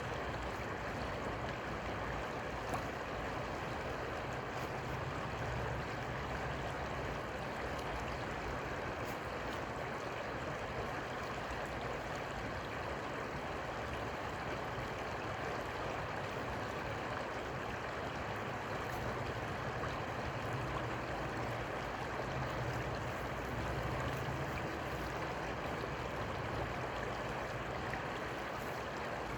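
Steady rush of flowing river water, an even noise with no clear rhythm.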